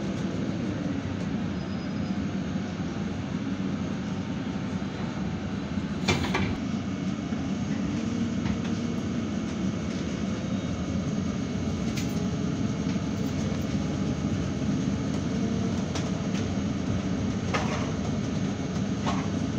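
Inside a MAN Lion's City GNV natural-gas city bus on the move: steady engine and road rumble, with a faint drivetrain whine that rises and falls. A few sharp knocks or rattles come through, the loudest about six seconds in and more near the end.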